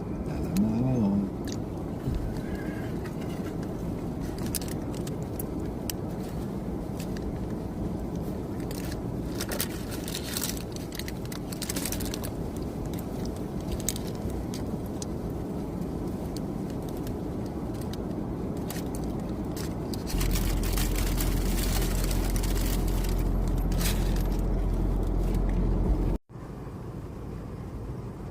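Steady low rumble of a moving car, heard from inside, with scattered light clicks and scrapes. Near the end the rumble grows louder for about six seconds, then cuts off suddenly.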